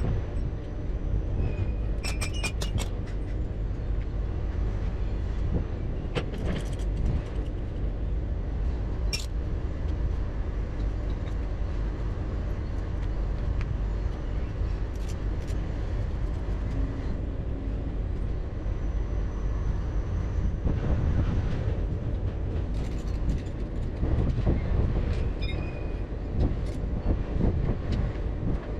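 Heavy goods vehicle running, a steady low rumble with short clicks and rattles now and then.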